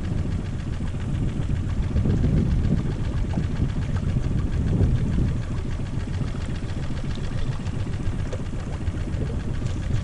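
Small Tohatsu outboard motor running steadily on a kayak's stern, a low rumble with a fast, even pulse.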